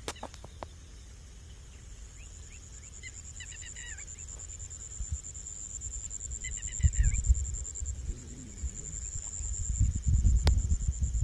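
Steady high-pitched drone of crickets or similar insects, with a bird giving two short runs of quick chirps, about three and seven seconds in. Low rumbles come and go around seven seconds and again near the end.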